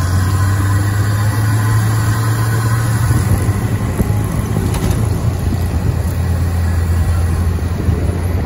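Open-top jeep's engine running steadily while driving, a low hum with road and wind noise heard from on board.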